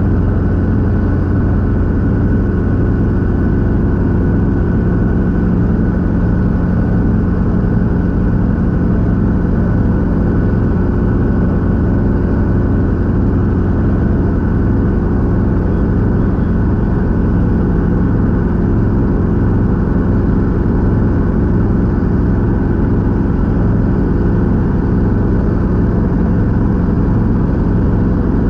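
Robinson R22 helicopter's four-cylinder Lycoming piston engine and rotor running with a steady, unchanging drone.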